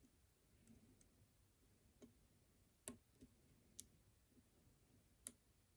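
Faint, irregular clicks of a lock pick working the pins of a pin-tumbler challenge lock, about seven over a few seconds.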